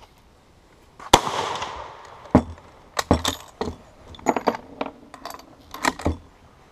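A single shot from a Lebel Model 1886/93 rifle in 8x50R Lebel, about a second in, ringing off for most of a second. It is followed by a string of sharp metallic clacks as the bolt is worked and fresh rounds are fed into the rifle's tube magazine.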